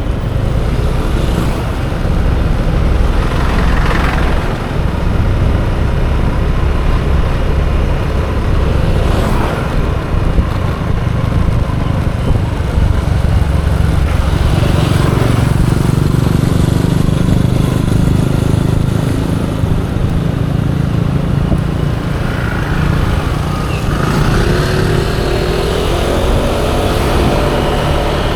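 Scooter ride through city traffic: a heavy low wind rumble on the microphone over the scooter's small engine running. Other vehicles swell past now and then, and an engine note rises and falls near the end.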